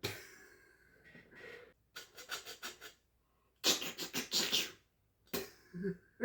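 A series of mouth-made imitation sound effects: short scratchy, breathy bursts, a quick run of clicks about two seconds in, and a louder hissing burst a little before the middle.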